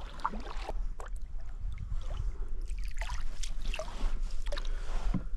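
Kayak paddle strokes in shallow marsh water: the blade dipping and pulling, with irregular splashing and dripping.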